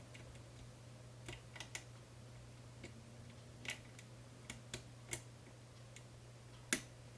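Faint, irregular clicks of a lock pick lifting and setting the pins inside a 5-pin Medeco cam lock, about eight ticks spread unevenly, over a steady low hum.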